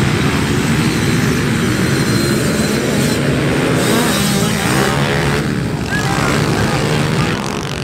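A pack of small pit bike engines running together at a race start, with revs rising and falling near the middle.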